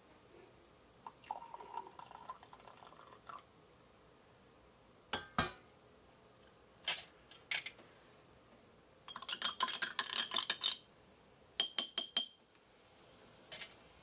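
Hot water trickling briefly from a stainless stovetop kettle into a small glass, then the kettle set down on the wooden bar with a thump. Later come sharp clinks and rattles of glass and metal, the loudest a quick run of them about two-thirds of the way through.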